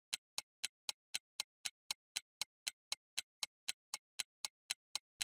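Clock-like ticking sound effect, about four even ticks a second with silence between them: a timer cue while the viewer is given time to work the problem.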